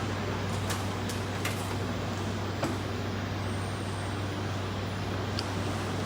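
Steady low hum and rumble of background noise, broken by a few light, sharp clicks.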